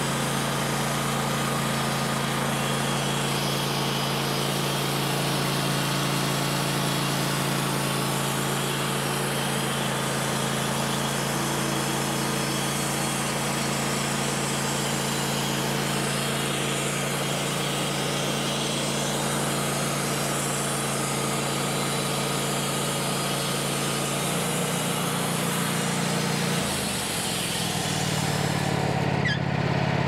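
Portable band sawmill's gasoline engine running steadily under load while the band blade cuts lengthwise through a maple log. Near the end the engine's note shifts as the cut finishes.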